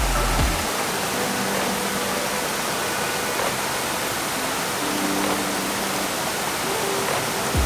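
Steady rushing of a waterfall, with a few faint held notes of background music over it.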